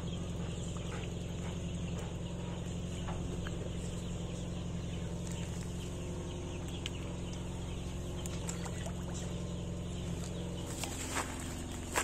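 Poultry clucking faintly over a steady low hum, which stops shortly before the end.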